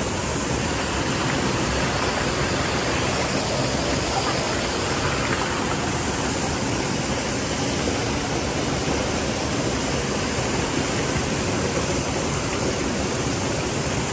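Waterfall pouring into a rock pool: a steady, even rush of water with no breaks.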